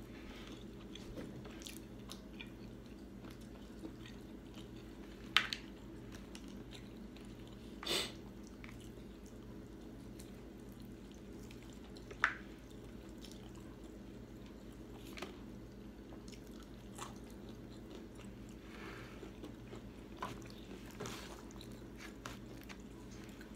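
Quiet chewing and mouth sounds of people eating fried chicken, with a few short sharp clicks, the loudest about five and twelve seconds in, over a faint steady hum.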